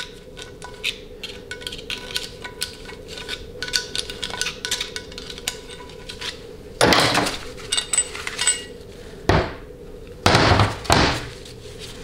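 Steel pick clicking and scraping inside a 700R4 valve body bore as a stuck 2-3 shift valve is coaxed out. In the second half come several louder metallic clunks and scrapes of metal parts being handled on the steel bench, over a steady hum.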